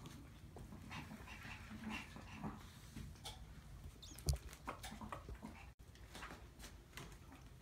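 Small Maltese puppies whimpering and squeaking faintly, with scattered short clicks and one sharp thump about four seconds in.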